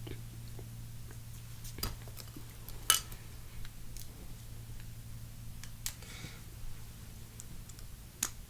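Scattered light clicks and taps of small plastic toy-kit parts being handled, the loudest about three seconds in, over a steady low hum.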